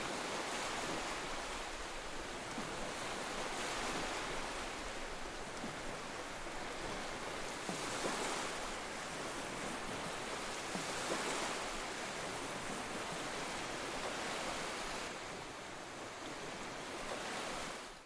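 Ocean waves washing against shoreline rocks: a steady surf hiss that swells every three to four seconds, stopping abruptly at the very end.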